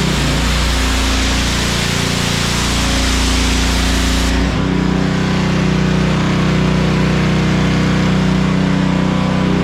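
Honda gas pressure washer running steadily, its small engine droning under the loud hiss of the high-pressure water jet spraying the concrete floor; the hiss and engine note shift about halfway through.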